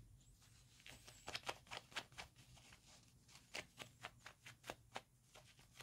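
Faint, rapid scratching and rustling of a kitten's claws raking a fabric kicker toy and a plush bed as it bunny-kicks with its hind legs. The short scratches come in two busy runs, about a second in and again past the middle.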